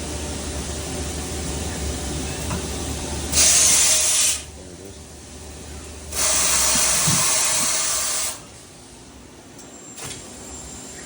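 Two blasts of compressed-air blow-off hissing, one about a second long and a longer one of about two seconds, over the steady low hum of the running CNC lathe cell.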